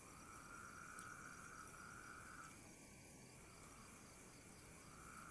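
Faint night insects calling: one steady call stops about two and a half seconds in and starts again near the end, over fainter, evenly pulsed chirping.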